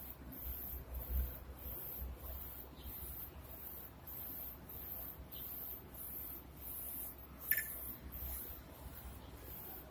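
UV flatbed printer's print-head carriage shuttling back and forth while printing, with a high hiss on each pass about once a second over a low motor hum. One sharp click about seven and a half seconds in.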